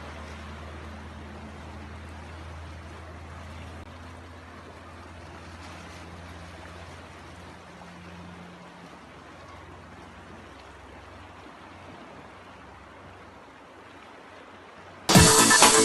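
Muddy floodwater rushing down a street: a steady wash of running water, with a low steady hum underneath for most of it. Loud electronic music cuts in suddenly near the end.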